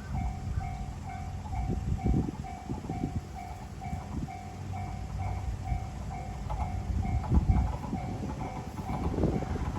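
Japanese level-crossing warning bell ringing its steady two-tone electronic ding, about two a second, while the KiYa 141 series diesel track-inspection train runs past with a low engine and wheel rumble and knocks from the wheels over the rails, louder near the end.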